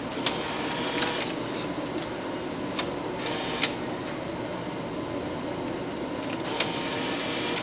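MEI bill recycler in a change machine taking in five-dollar bills in loading mode: a steady mechanical whir as the bills are drawn in and rolled onto the recycler, with several sharp clicks spread through it.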